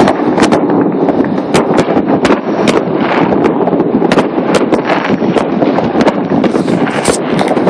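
New Year fireworks going off, sharp cracks and bangs about twice a second at irregular spacing over a dense, continuous roar.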